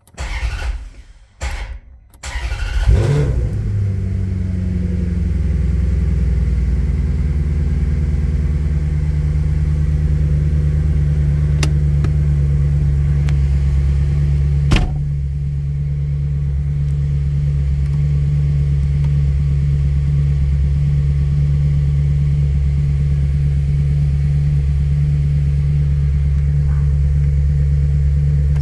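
Car engine cranking in a few short bursts, catching about three seconds in with a quick rev, then idling steadily; the title calls it hard starting. A sharp click comes about halfway through, after which the idle runs a little quieter, and the engine stops at the very end.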